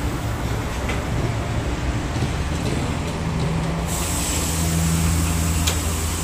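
A steady low mechanical hum, joined about four seconds in by a high hiss.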